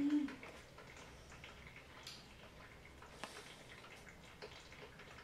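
Faint trickling and dripping of coffee, with a few soft drip ticks.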